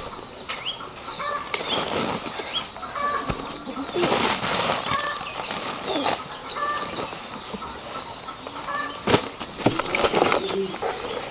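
Small birds chirping over and over in short downward chirps. Underneath are rustling, heaviest about four seconds in, and a couple of sharp knocks near the end as jackfruit are shifted and a plastic sack is spread out.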